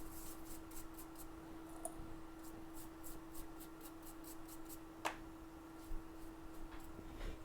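A small brush scrubbing over an iPhone logic board in short, crisp strokes, a few a second, with one sharper tap about five seconds in. A steady faint hum runs underneath.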